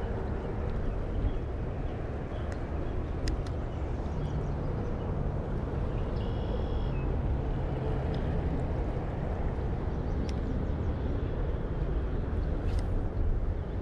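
Steady low roar of fast-running creek water. A few faint clicks come through it, and a short high-pitched tone sounds about halfway through.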